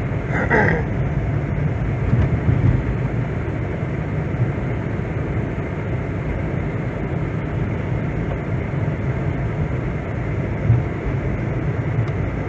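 Steady low rumble of a car driving on snow-covered roads: engine and tyre noise heard inside the cabin. There is a brief higher pitched sound about half a second in.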